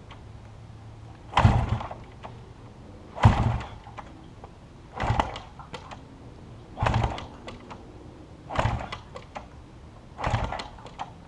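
Six kick-starter strokes on a cold 1971 Honda CL175's parallel-twin. Each is a short clatter as the lever is kicked down and the engine turns over, about every two seconds, and the engine does not fire.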